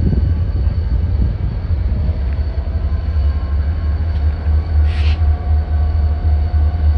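Steady low rumble of two diesel yard locomotives shoving a cut of freight cars, heard from afar, with a faint drawn-out tone joining about two seconds in.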